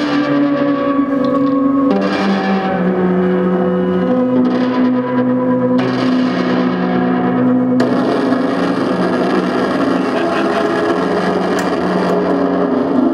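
Electric violin bowed through a chain of effects pedals, giving layered, held, distorted notes whose pitches shift every couple of seconds. About eight seconds in, a harsh hissing noise layer joins the drone.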